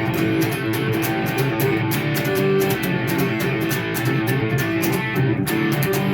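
Electric guitar played through a Marshall MG100HFX amplifier: a blues passage of quickly picked notes and strums, continuous and loud.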